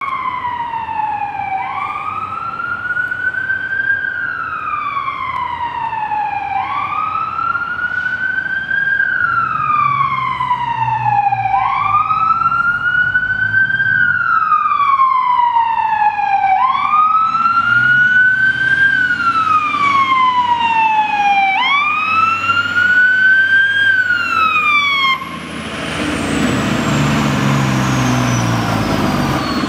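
Fire truck siren on wail, each sweep climbing and then sliding back down about every five seconds, five times over. Near the end the wail stops and the truck's own engine noise gets loud as it pulls close.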